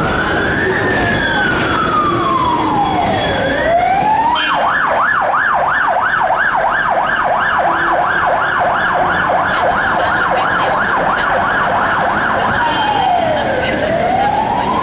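Ambulance siren sounding a slow rising and falling wail. About four seconds in it switches to a rapid yelp of about three sweeps a second, then goes back to the slow wail near the end.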